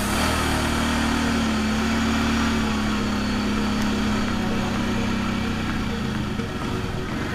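Quad bike (ATV) engine running with a steady drone as it rides along a muddy trail.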